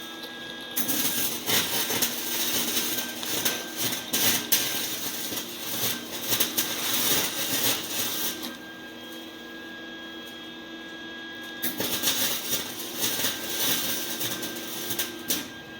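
Welder arc crackling and sputtering in two welds on a car exhaust pipe, a long run of about eight seconds and then a shorter one after a pause of about three seconds, over a steady machine hum.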